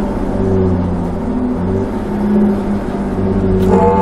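A vehicle's engine running at highway speed, heard from inside the cab as a steady drone over road noise, its pitch drifting slightly up and down.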